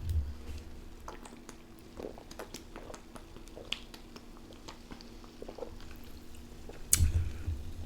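A person gulping carbonated soda straight from a 2-liter bottle: faint, irregular swallowing clicks, then a sudden louder sound near the end.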